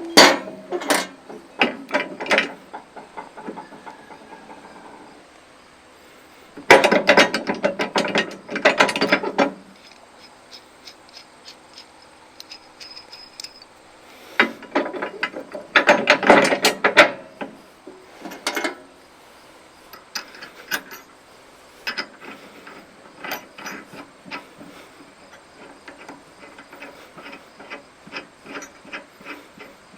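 Hand ratchet wrench clicking in two fast runs of a few seconds each, then in shorter, sparser strokes, as a nut on a tractor hitch pin is worked.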